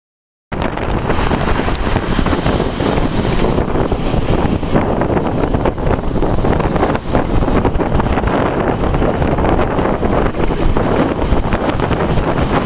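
Wind blowing across the microphone, a loud, steady rush that cuts in suddenly about half a second in.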